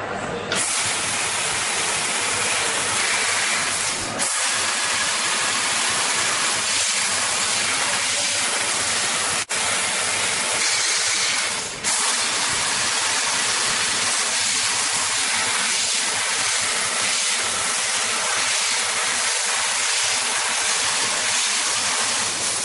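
Laser cutting machine's assist-gas jet hissing loudly and steadily while cutting sheet metal, dropping out briefly about three times.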